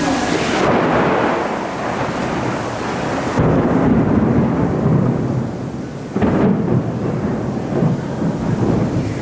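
Thunder rumbling over the steady rush of heavy rain and falling water, with louder rumbles starting about three and a half seconds in and again just after six seconds.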